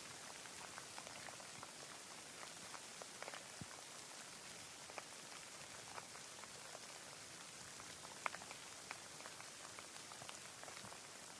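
Steady rain, a fine even hiss with scattered individual drops ticking through it, one sharper drop a little over eight seconds in.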